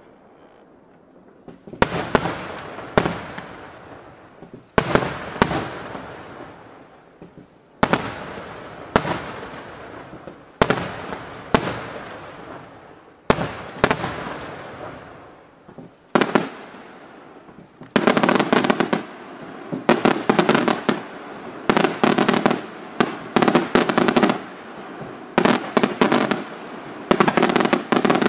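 Aerial firework shells bursting, starting about two seconds in: a sharp bang every second or so, each followed by a fading crackle. From about two-thirds of the way through, the bursts come in quick rattling clusters.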